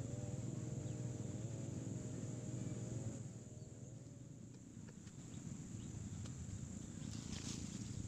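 Outdoor ambience with a steady high insect drone throughout. A low wavering hum dominates for the first three seconds, then stops. After that come scattered light clicks and rustles of someone moving through brush.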